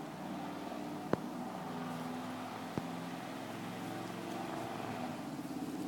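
A motor running steadily, a hum made of a few held tones, with two short sharp clicks, about one second in and near three seconds in.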